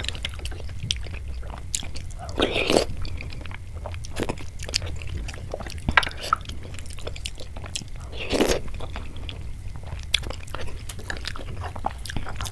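Close-miked ASMR eating sounds of a soft milky sweet, kheer, being eaten from a spoon: wet chewing and lip smacks with many sharp mouth clicks. Two longer, louder wet sounds come about two and a half and eight and a half seconds in.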